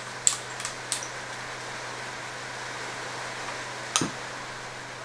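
Handling of a mountain bike suspension fork and its plastic wrapping: a few light clicks in the first second and one sharper click about four seconds in, over a steady hiss and low hum.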